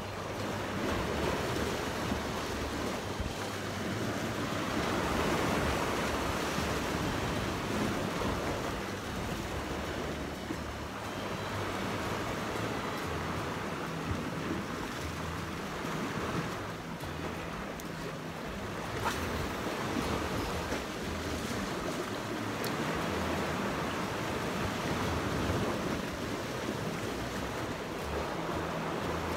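Sea waves washing against the shore, swelling and easing every several seconds, with some wind noise on the microphone.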